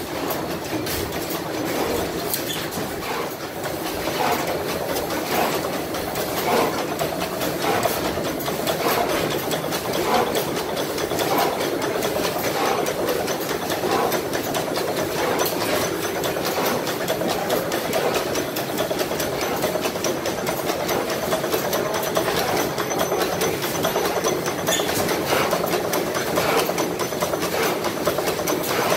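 Vintage stationary gas engines running, a steady mechanical sound with regular beats about a second apart through the first half, then a denser, even run.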